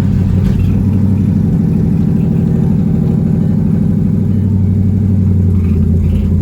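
2012 Mustang GT's 5.0-litre V8 idling steadily through an aftermarket MBRP exhaust, just after its first start.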